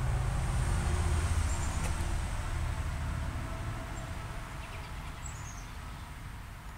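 Low, steady engine hum of a motor vehicle in the background, fading gradually. A bird gives two short runs of faint high chirps.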